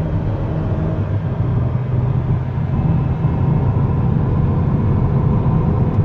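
Inside the cabin of a 2011 Toyota Sienna AWD on the move: steady low drivetrain and road rumble with a faint steady whine over it. The whine comes from the rear differential's viscous coupler, which a mechanic traced with a stethoscope and the owner takes for a defective part.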